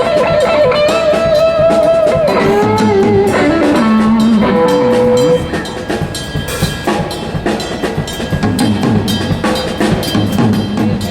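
Rock band playing with electric guitar and drum kit: sustained, bending guitar lead notes over the drums. About five seconds in it gets quieter, and the drum hits carry on.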